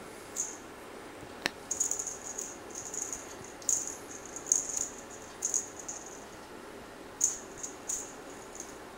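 A feathered string toy rattling in short, irregular bursts as a kitten swats and grabs at it, with one sharp tap about one and a half seconds in.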